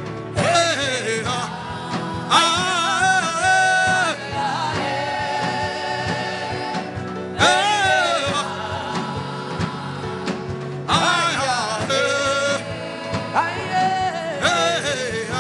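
Gospel worship music: a voice sings long, wavering, gliding melodic phrases over sustained instrumental chords.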